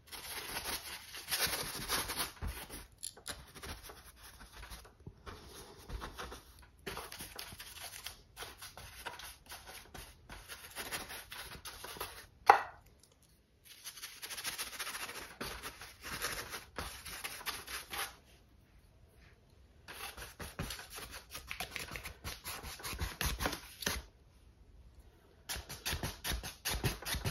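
Filbert paintbrush scrubbing acrylic paint across a stretched canvas: a dry, scratchy rubbing in runs of strokes a few seconds long with short pauses between. One sharp knock about halfway through.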